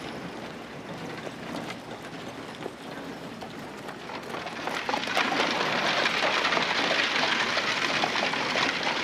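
Western-town street ambience: a dense rattling clatter, full of small clicks, that grows clearly louder about five seconds in.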